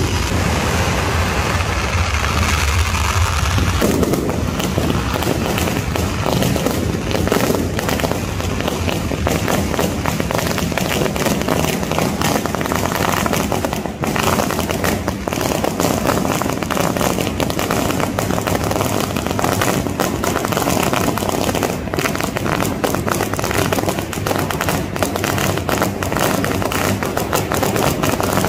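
A long string of firecrackers going off in a continuous rapid crackle of pops, with a low steady hum underneath for the first few seconds.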